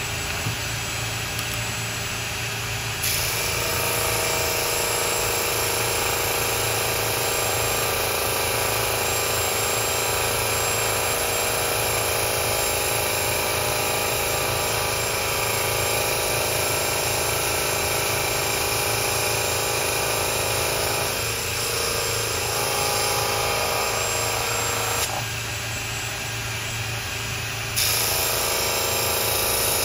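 Ryobi cordless drill spinning the sanding drum of a small homemade drum sander, with a dust-extraction vacuum running, as a thin wood strip is fed under the drum. Steady mechanical running, louder from about three seconds in, dropping for a few seconds near the end and picking up again.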